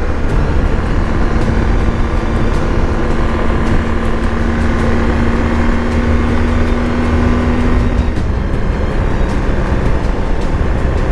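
BMW R 1250 GS Adventure's boxer-twin engine running at a steady cruise under a heavy low rumble of riding noise, with a steady engine tone that holds from about a second in until about eight seconds in.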